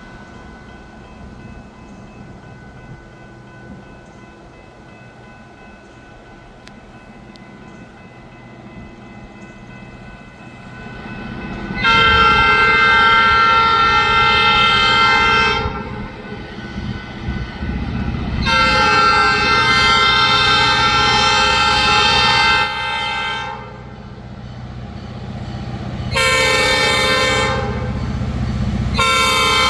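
Diesel locomotive horn sounding the grade-crossing signal, two long blasts, a short one and a final long one, over the growing rumble of the approaching locomotive and train. The horn is a chord of several notes.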